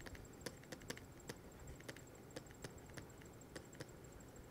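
Faint, irregular light taps of a stylus on a tablet screen during handwriting, about two a second.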